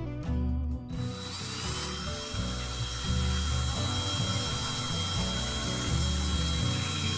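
Bench grinder with a fiber wheel starting about a second in: a rising whine settles into a steady high hum with the hiss of the spinning wheel, used to polish a steel spokeshave cap. Background music with a steady bass beat plays underneath.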